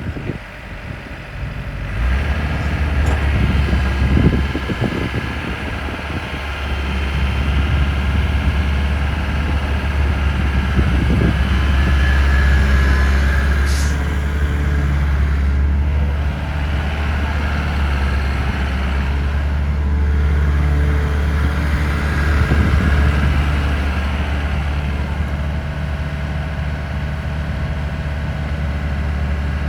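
Takeuchi TB180 midi excavator's diesel engine running, a steady low hum that grows louder about two seconds in and swells a little now and then.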